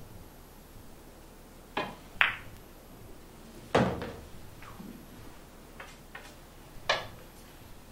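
A pool shot: the cue tip strikes the cue ball, then a sharp click about half a second later as the cue ball hits the object ball. A heavy thud follows as the ball drops into a pocket, then a few light knocks and another sharp click near the end.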